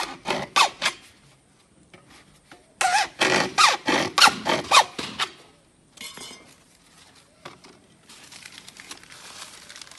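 Hacksaw cutting a plastic pipe: quick back-and-forth strokes, each with a squeal, in two runs, one ending about a second in and another from about three to five seconds in. Faint scraping follows near the end.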